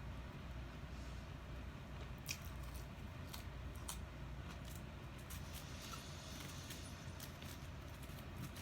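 Faint eating sounds: a man chewing fast food, with scattered small mouth clicks and a brief rustle about six to seven seconds in, over a low steady hum.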